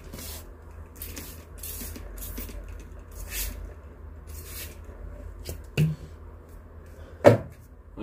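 A tortoise biting and chewing cucumber and greens, with soft crunching bites over a low steady hum. Two sharp knocks come near the end, the second one louder.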